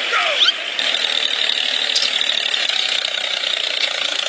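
Small geared motor of a homemade toy tractor running, a steady whirring rattle with a high whine that sets in about a second in.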